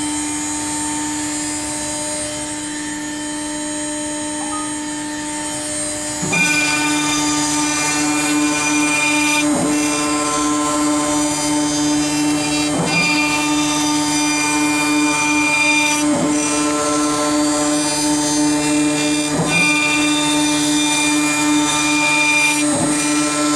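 CNC router spindle running at about 18,000 RPM with a steady whine, its half-inch four-flute carbide end mill milling into pine. About six seconds in, the cut begins and the sound gets louder, with a brief sweep in pitch about every three seconds.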